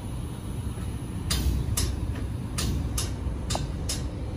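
Footsteps crunching on gritty concrete at a walking pace, about two steps a second, starting about a second in, over a steady low rumble.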